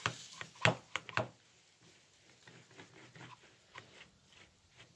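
A few sharp metallic clicks and knocks in the first second or so, then faint scraping and ticking, as the armature of a Warn 2500 ATV winch motor is handled and worked up out of its housing.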